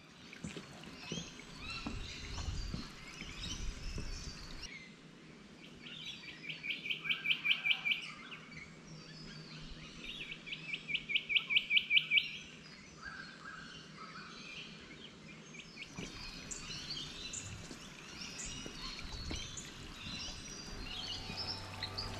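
Several birds chirping and calling. Twice a bird gives a fast run of repeated notes, about five a second, that swells louder over about two seconds; these runs are the loudest sounds.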